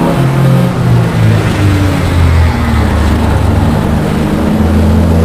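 Race-prepared VW Rabbit's engine heard from inside the car on track, with road and wind noise. The engine note falls over the first couple of seconds as the car slows for a corner, holds through the turn, then begins to climb again near the end.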